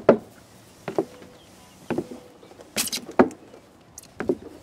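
Footsteps on grass: soft thumps about once a second, with one sharper, louder step about three seconds in.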